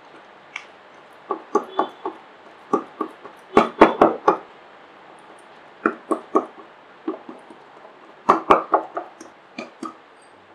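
Fingers patting and pressing a ball of rice flour dough flat on a greased sheet: soft slapping pats in quick runs of several, with short pauses between runs.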